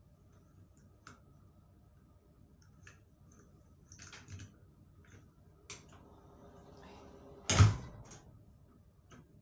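Round metal doorknob being twisted and rattled, with small latch clicks, on a stiff door that is hard to close; a loud thud comes about seven and a half seconds in as the door is pushed against its frame.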